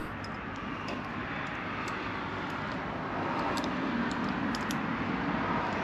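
Steady, even background rush of ambient noise with no clear engine note, and a few faint light clicks.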